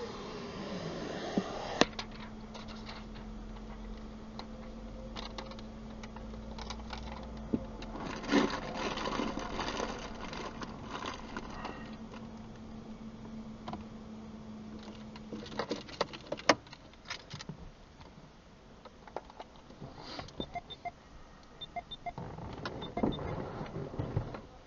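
Scattered clicks and brief rustling, handling noises inside a stationary car, over a steady hum that stops about two-thirds of the way through.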